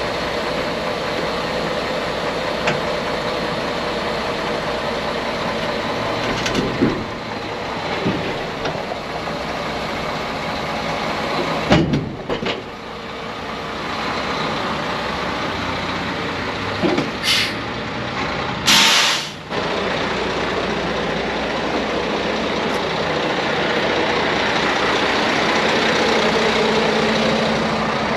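Semi truck's diesel engine idling steadily, with a few thumps and two short sharp hisses of air from the truck's air brake system a little past halfway.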